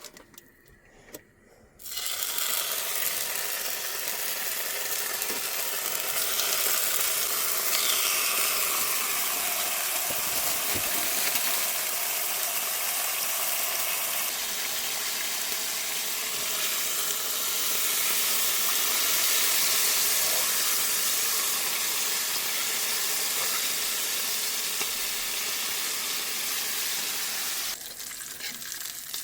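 Bacon sizzling as it fries in a hot pan, a steady hiss that starts suddenly about two seconds in and drops away near the end.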